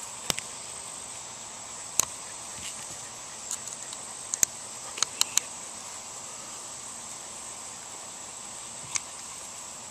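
Small sharp clicks and taps, irregularly spaced, as tiny screws and a hex key are handled against a plastic shell holder and its metal mounting plate during assembly. A steady high-pitched whine runs underneath.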